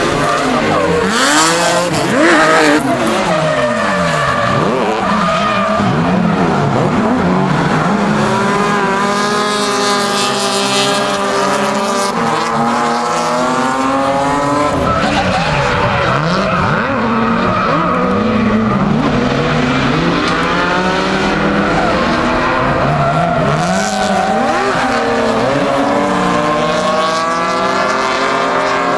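Drift cars' engines revving up and down over and over through sliding runs, with tyres squealing and skidding, loudest about two seconds in and again around ten seconds in.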